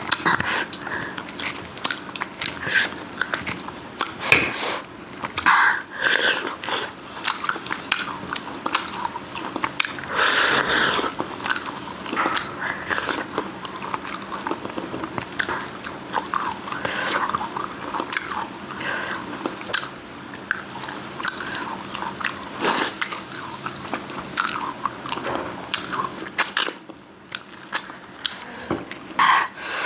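A person eating: chewing and biting food with wet, irregular mouth clicks and smacks.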